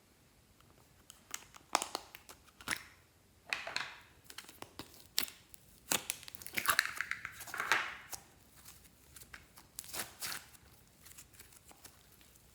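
Glossy slime being squished and worked by hand, giving irregular sticky clicks and crackles in uneven clusters.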